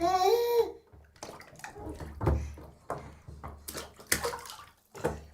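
A baby in a bathtub gives a brief high-pitched vocal sound, then bath water splashes and sloshes irregularly as the baby plays in it.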